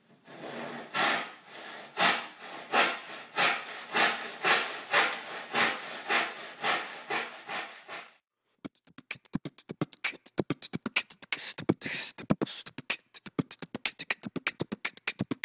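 Stanley back saw cutting across a wooden board by hand, its push-and-pull strokes rasping about twice a second. After a brief break about eight seconds in, the strokes come much faster and sharper. The unwaxed blade is hard going in the cut.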